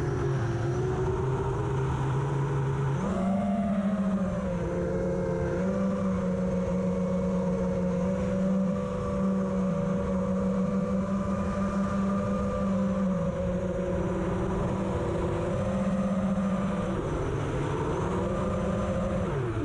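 FPV quadcopter's brushless motors whining with the throttle, the pitch stepping up about three seconds in, holding, dipping for a few seconds past the middle, then rising and falling away near the end, over a low rumble of wind.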